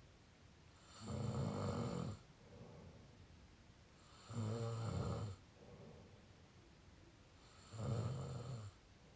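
Mouth snoring: three loud snores, each about a second long and about three and a half seconds apart, with softer breaths between them.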